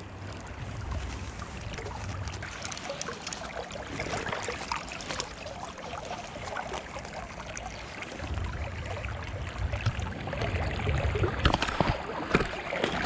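River water rushing and splashing close to the microphone. Low wind rumbles on the microphone come and go, and a few short sharp splashes or knocks sound near the end.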